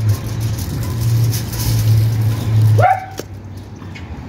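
A steady low hum cuts off about three seconds in, and a dog then barks once, briefly.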